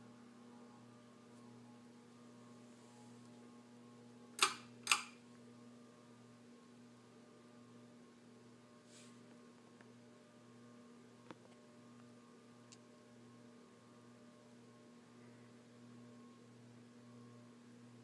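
Alaska AC-4152 52-inch ceiling fan's motor giving a steady electrical hum while its blades slow down. About four and a half seconds in come two sharp clicks of its pull-chain switch, half a second apart.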